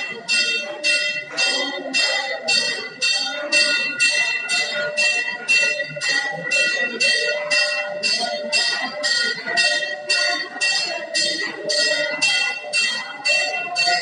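Temple bell rung continuously in quick, even strokes, about two a second, each stroke ringing on into the next, with voices underneath.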